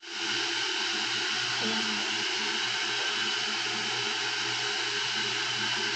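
Steady whirring rush of an electric fan motor running at constant speed, starting abruptly.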